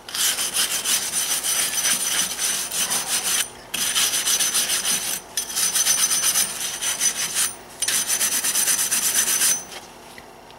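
A hand brush scrubbing the metal face of a car's wheel hub with fast back-and-forth strokes, cleaning it off now that the brake rotor is removed. It comes in four bouts with brief pauses between them and stops shortly before the end.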